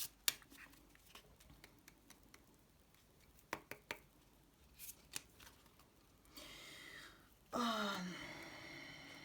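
Playing cards being handled and laid down on a table: a scatter of light, sharp card snaps and clicks. About three quarters through, a short louder pitched sound falls in pitch.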